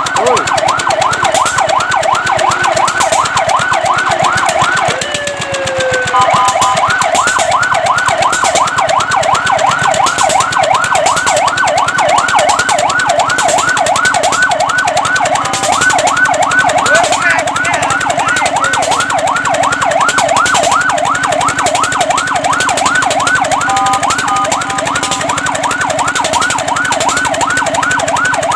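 Fire truck siren in a fast yelp, sweeping up and down about three times a second. About five seconds in it briefly breaks into a slower glide, and a short burst of steady tones cuts in near the end.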